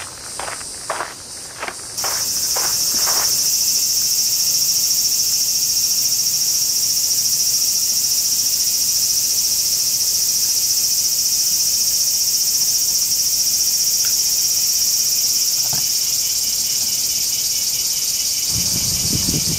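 Loud, steady, high-pitched chorus of summer cicadas, starting abruptly about two seconds in. At the start, footsteps on a garden path about two a second fade out, and near the end a low rumble comes in under the cicadas.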